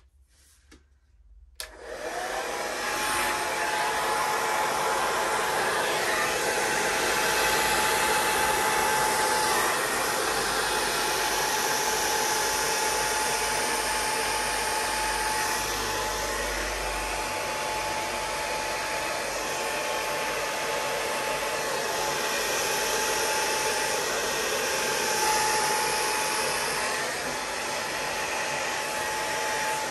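Electric blower switched on about two seconds in and running steadily: rushing air with a steady whine, pushing wet acrylic pour paint across a canvas.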